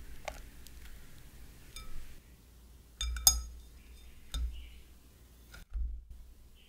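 A wire-mesh sieve clinking against the rim of a glass mixing bowl as it is set in place: a cluster of sharp metal-on-glass clinks about three seconds in, the loudest sound, with a few lighter taps before and after.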